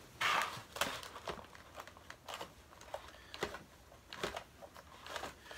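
Faint, scattered small clicks and rustles of wire twist ties being untwisted from an action figure's plastic packaging.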